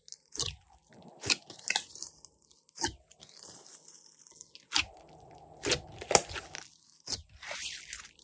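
Hands pressing and squishing glossy slime, giving irregular sharp sticky pops and crackles a few times a second.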